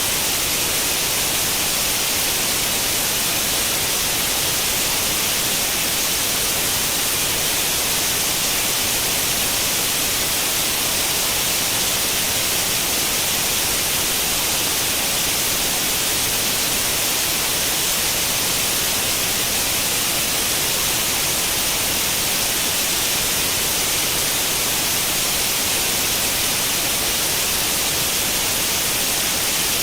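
White noise in the manner of old tube-television static with no channel tuned in: a steady, unchanging hiss, strongest in the high range.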